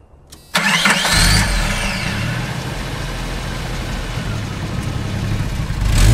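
A car engine starts about half a second in, its pitch rising as it revs, then runs steadily.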